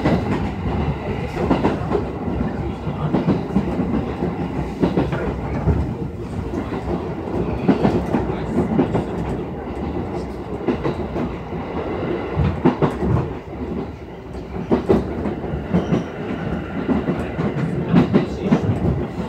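Running noise heard from inside the cabin of a JR East 211 series electric multiple unit travelling at speed: a steady rumble of wheels on rail, with irregular clacks as the wheels pass over rail joints.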